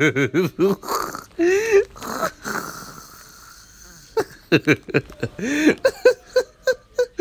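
A man laughing hard in quick, repeated bursts, dropping to a breathy lull in the middle before breaking into laughter again.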